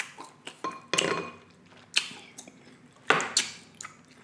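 Cutlery clinking against dishes during a meal: four or five short, sharp clicks about a second apart.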